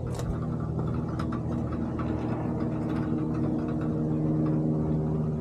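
An engine running steadily at one speed, a constant low hum, with a few faint clicks over it.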